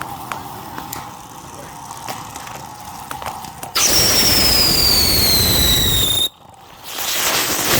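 A whistling firework goes off suddenly with a loud hiss and a shrill whistle that slides slowly down in pitch for about two and a half seconds, then cuts off abruptly. Before it come scattered light clicks and ticks, and near the end a rising rush of noise.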